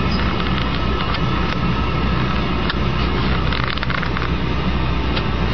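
A toilet running steadily, water rushing as the tank refills after repeated flushing, with a few light clicks about three and a half seconds in.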